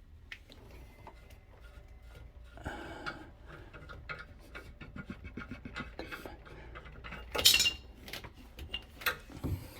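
Small metal parts clinking and rubbing as a loosened pipe fitting is worked off and the HVAC water-line strainer is handled, with one brief, louder clatter about seven and a half seconds in.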